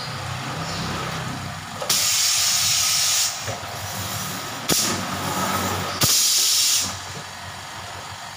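Compressed-air spray gun spraying ink in three hissing bursts: one of over a second starting about two seconds in, then two more close together near the middle. A steady low engine hum runs beneath.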